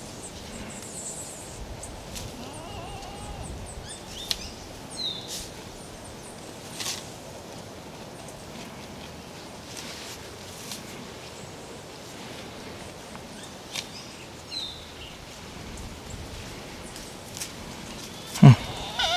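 Quiet rural outdoor ambience with scattered small clicks and a few short bird chirps, then a sheep bleats loudly near the end.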